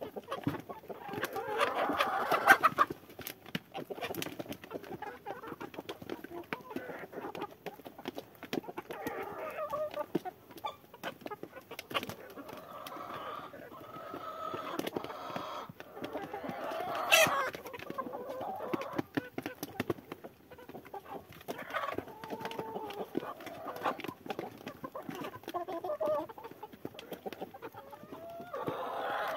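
A flock of chickens clucking and calling while they feed, with louder calls about two seconds in and again near the middle. Beaks peck at chopped greens on a tray, making quick, irregular clicks throughout.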